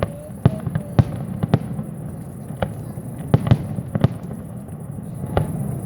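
Aerial fireworks display: a string of sharp bangs at irregular intervals, about ten in six seconds, over a continuous low rumble of shells bursting.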